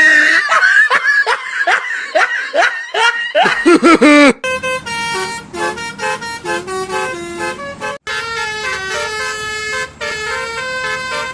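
For about four seconds, rapid high-pitched wavering glides. Then a multi-tone telolet bus horn plays a melody of quick stepped notes.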